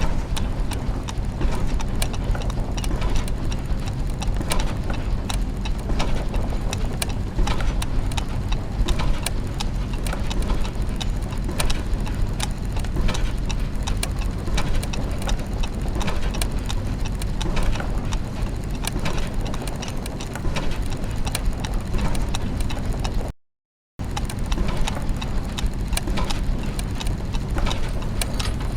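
Clockwork machinery ambience: many gears and ratchets ticking and clicking in an irregular mesh over a steady low mechanical hum. It drops out to silence for about half a second roughly 23 seconds in.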